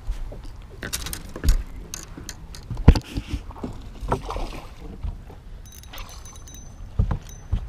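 Scattered clicks and knocks of fishing tackle and pliers being handled on a bass boat deck, the sharpest knock about three seconds in, over a steady low rumble.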